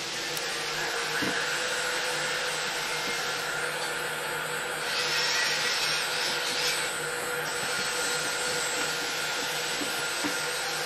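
Bosch heat gun running: a steady rush of blown air over its motor hum, brightening for a few seconds around the middle.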